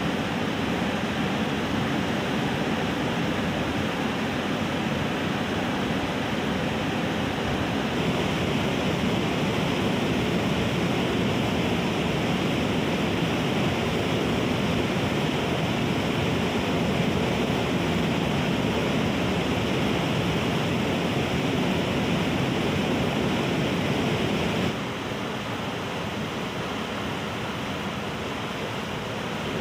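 Fast mountain river rushing over rocky rapids: a steady, unbroken sound of white water. Near the end it drops a little quieter and stays steady.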